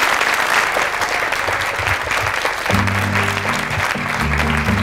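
Theatre audience applauding. About two and a half seconds in, music starts under the clapping with steady low bass notes.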